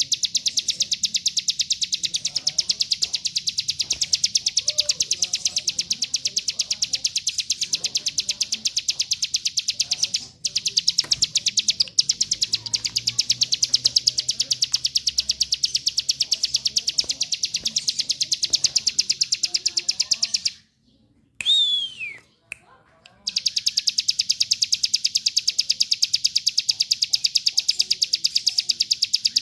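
Ciblek gunung (hill prinia) giving its 'bren', a continuous, very fast, high-pitched buzzing trill of rapidly repeated notes. It breaks briefly about ten seconds in, and again for a couple of seconds around twenty-one seconds, when a single falling whistle sounds before the trill resumes.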